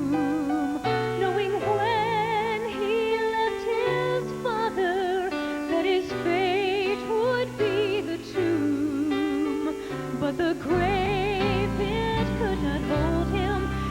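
Instrumental introduction of a song: a melody with vibrato over held bass notes, with a fuller, heavier bass coming in about eleven seconds in.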